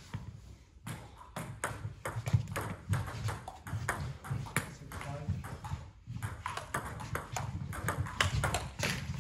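Table tennis ball being hit back and forth in a rally, sharp clicks of the ball on the bats and table in quick succession, with brief pauses near the start and about six seconds in.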